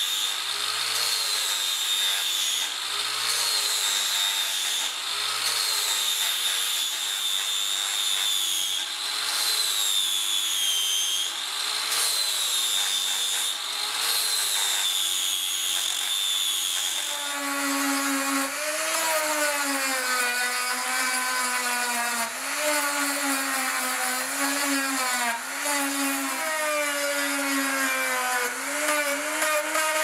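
Angle grinder with a sanding disc sanding a wooden knife handle: a high motor whine that sags and recovers every couple of seconds as the disc is pressed into the wood. About 17 seconds in it gives way to a smaller, lower-pitched rotary tool with a sanding drum shaping the ash handle, its pitch dipping repeatedly under load.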